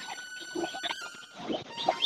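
A cow drinking water from a bucket, slurping in short, irregular gulps.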